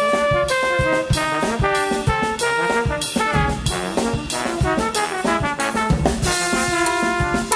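Two trombones playing a lively duet in interweaving lines, with drum kit hits throughout and a cymbal crash about six seconds in.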